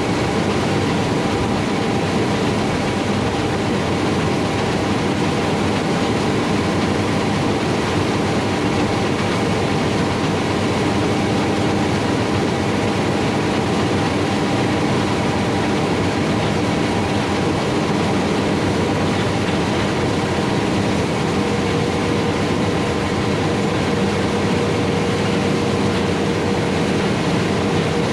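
Heavy harvest machinery running steadily at working speed: a continuous mechanical drone with a few steady whining tones over it, and another whine joining about two-thirds of the way through.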